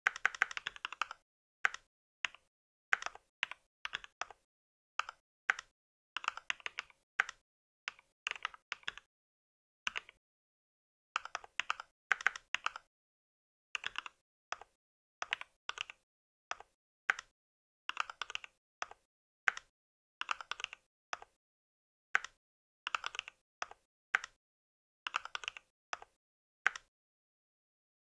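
Typing on a mechanical keyboard: quick runs of key clicks broken by short pauses, with silence between the keystrokes.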